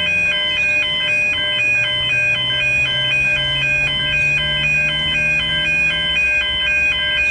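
Railway level crossing bells ringing in a fast, even, repeating electronic pattern, the warning that a train is approaching. A steady low drone runs underneath.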